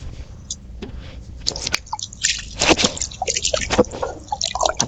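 Water dripping and splashing in many short, irregular drips and squelches, starting about a second and a half in, as a muddy toy is washed clean.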